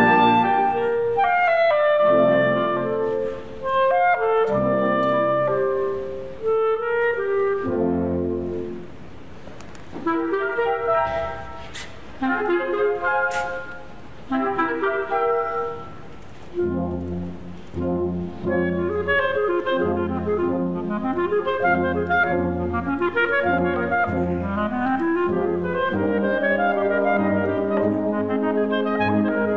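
Solo clarinet playing fast runs and a singing melody over a concert wind band accompaniment of clarinets, saxophones and brass, the music easing to quieter passages several times before swelling again.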